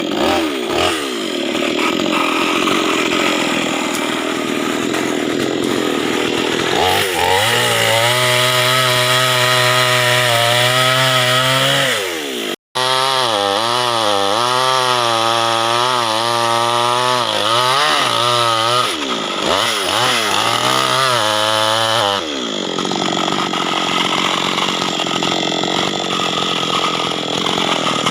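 Chainsaw running hard and cutting acacia wood, its engine pitch rising and falling as it works under load. The sound drops out for an instant about twelve seconds in.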